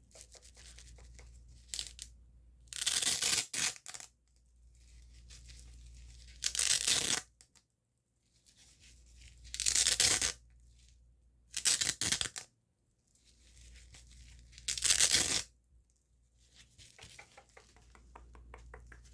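Close-miked ASMR trigger sounds: about five sharp bursts of rasping, scratchy noise a few seconds apart, with faint rustling between them.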